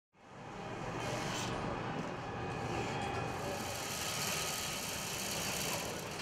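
Steady mechanical whir of workshop machinery: a wire-straightening and cutting machine running, with a faint steady whine over it. It fades in over the first half second.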